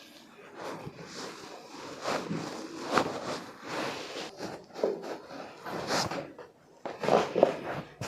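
Irregular rustling and scraping of hands working over the patient's body, clothing and the treatment table during a chiropractic session, with louder strokes about three seconds in, six seconds in and near the end.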